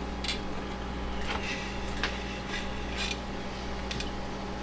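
A kitchen knife scraping against a knife block as it is slowly drawn out, in several short rasps, over a steady electrical hum.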